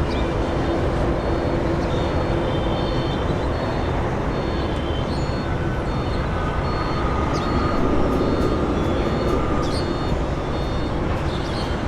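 Steady, loud vehicle engine noise, with a faint high-pitched beep repeating in short, even pulses throughout.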